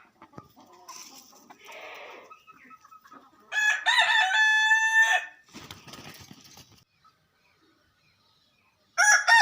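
A rooster crowing: one full cock-a-doodle-doo of about a second and a half beginning a few seconds in, after fainter scattered sounds, and a second crow starting near the end.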